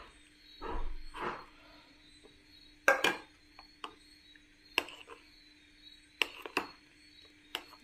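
Steel spoon clinking and scraping against a plastic bowl while stirring a thick melted soap and aloe vera gel mixture: a handful of short sharp taps spaced a second or so apart.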